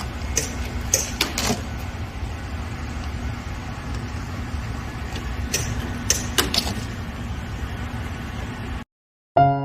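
Industrial four-lane roll packaging machine for liquid coffee concentrate running with a steady hum. Clusters of sharp clicks and snaps come about half a second in and again about five and a half seconds in. The machine sound cuts off near the end and piano music begins.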